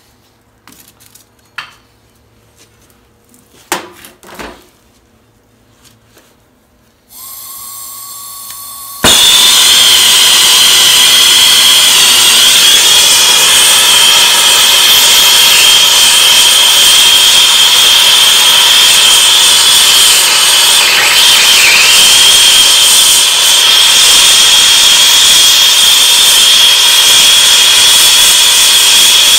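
An acetylene torch: after a few handling clicks, a quieter steady hiss begins, and about two seconds later the sound jumps suddenly to a loud, steady hissing flame with a high whistle. The flame is preheating a steel pipe before welding.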